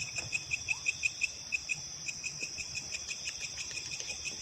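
Insects chirping: a fast, regular run of short high chirps over a steady, higher-pitched trill.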